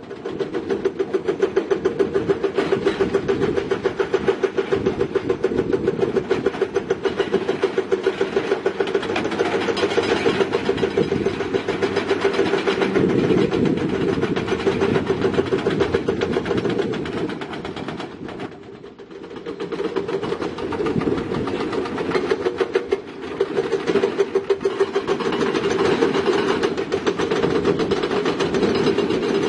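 Heavy earthmoving machinery at work: a diesel engine running under load with a rapid, even clatter. The sound dips briefly about eighteen seconds in, then picks up again.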